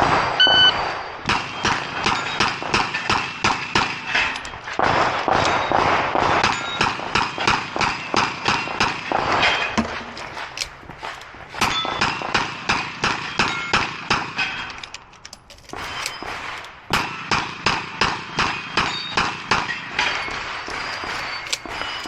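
Electronic shot-timer beep about half a second in, then a fast string of 9mm shots from a Smith & Wesson 929 revolver, with steel plates ringing as they are hit. The firing drops off briefly about two-thirds of the way through, then picks up again.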